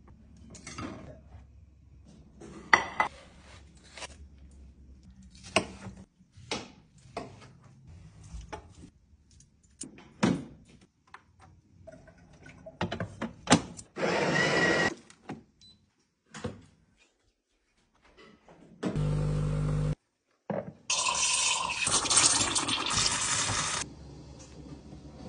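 Kitchen sounds: clicks and knocks as a waffle-maker lid and utensils are handled, and water running from a tap into a removable water tank. Two loud stretches of steady machine noise follow, about a second long and then about three seconds long.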